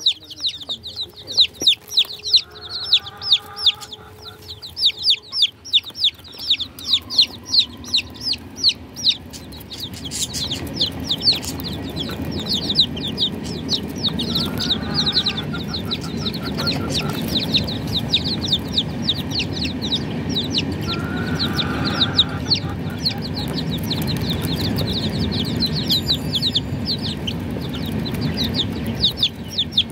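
Baby chicks peeping continuously, a rapid stream of short, high, falling cheeps, with a few lower clucks in between. A low rushing noise sets in about ten seconds in and stays under the peeping.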